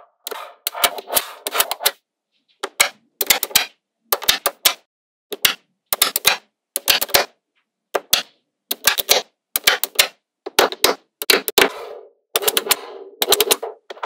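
Small magnetic balls clicking and snapping together in quick rattling runs of clicks, a dozen or so short runs separated by brief silences.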